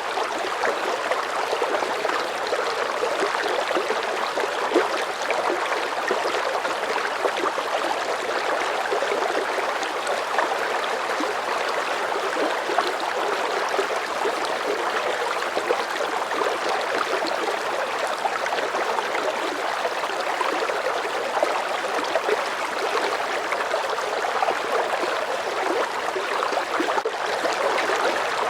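Medium-strength river current flowing steadily, a continuous rushing and burbling of moving water.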